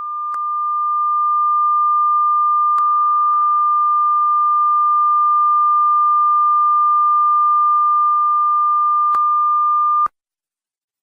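A steady, high electronic tone of a single pure pitch, swelling in over the first couple of seconds, holding level, then cutting off abruptly about ten seconds in, with a few faint clicks over it.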